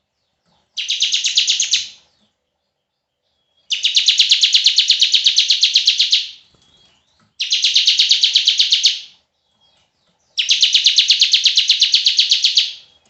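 Bar-winged prinia (ciblek) giving a long, fast, evenly pulsed buzzing rattle in the cicada-like 'bren' style, about eleven pulses a second. It comes in four separate bursts of one to two and a half seconds each, with short silences between.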